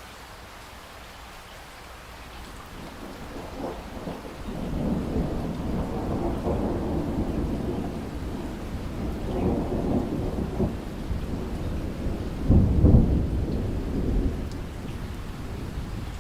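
Steady rain with a long roll of thunder that builds from about two seconds in, rumbles on for about ten seconds with its loudest clap near the end, then dies away.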